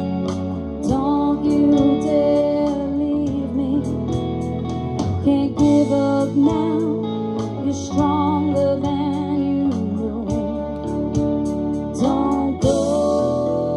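A live rock band playing an instrumental passage: an electric guitar lead with bent, wavering notes over bass and drums, with a cymbal crash near the end.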